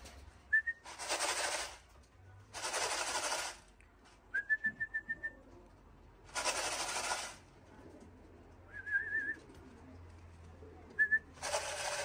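Short, high, level whistles from a pigeon fancier calling racing pigeons down to the loft, four times, one of them wavering. Between them come four dense, hissing rattles, each about a second long.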